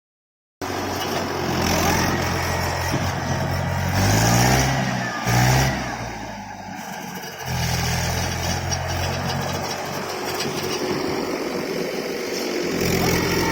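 Tractor diesel engine running, its pitch swinging up and down about four to five seconds in as it revs, dropping quieter for a moment, then running steadily again.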